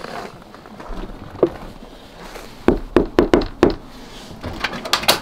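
Knocking on a house door: a quick run of about five sharp knocks about three seconds in, with lighter clicks near the end.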